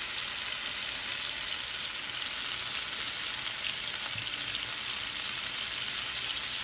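Salmon fillet sizzling steadily in a hot frying pan, the lemon juice around it bubbling and hissing.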